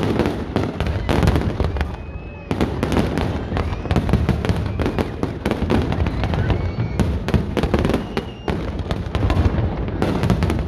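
Fireworks display: aerial shells bursting in a dense barrage of bangs and crackling, with a brief lull about two seconds in.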